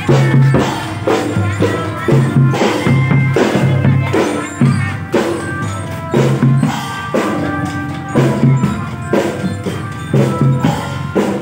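Children's marching drum band playing: drums keep a steady beat under a bright melody from belira (marching bell lyres).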